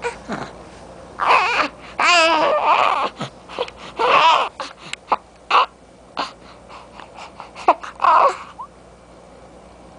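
Young infant fussing: several short, whiny cries with a wavering pitch, spread through the first eight and a half seconds, with scattered soft clicks in between.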